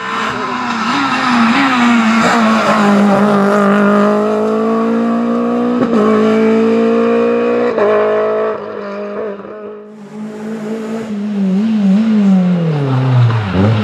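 Renault Clio Williams Group A rally cars' four-cylinder engines at high revs as they drive past. The engine holds a steady high pitch, with brief breaks about six and eight seconds in. A second car follows after a short dip, its engine pitch falling and then climbing again near the end.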